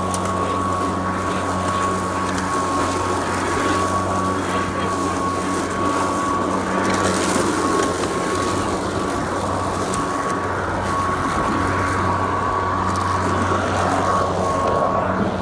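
Greenworks Pro 80V cordless push mower running steadily: its brushless motor and blade give a constant high whine over a low hum.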